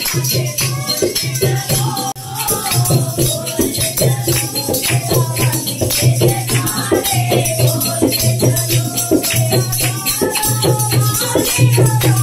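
Devotional bhajan music: a voice singing over fast rattling, shaker-like percussion and a repeating low pulse.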